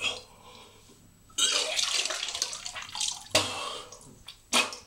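A man retching and gagging over a toilet bowl, sick from eating a whole 600 g jar of Vegemite. A long, rough, watery-sounding heave runs from about a second and a half in, followed by two short, sharp heaves near the end.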